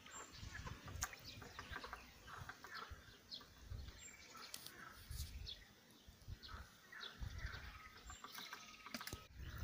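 Faint birdsong: several small birds chirping and calling in short, scattered notes, over occasional low rumbles.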